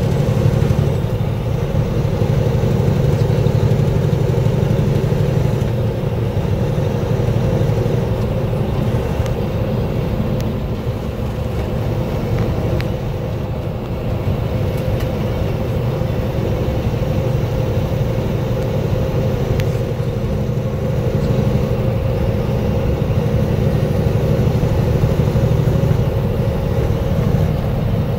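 Steady drone of a semi-truck's diesel engine and tyre and road noise, heard inside the cab while cruising at highway speed.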